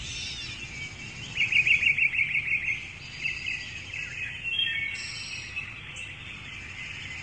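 Birds chirping, with a quick trill of rapidly repeated notes from about a second and a half in to nearly three seconds.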